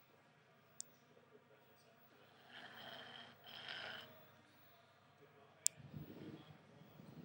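Staffordshire bull terrier puppy snoring in its sleep: two soft breaths a few seconds in, then a lower, rougher snore starting near the end. A couple of brief sharp clicks come in between, one just before the lower snore.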